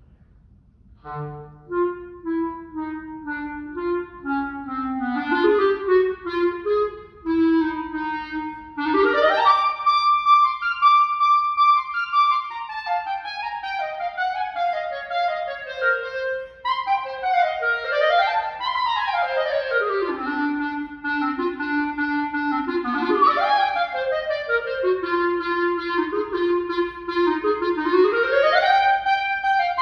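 Unaccompanied solo clarinet playing a classical piece. It enters about a second in on low notes, sweeps up in a fast run to a held high note, then moves through falling lines and wide runs that leap up and down.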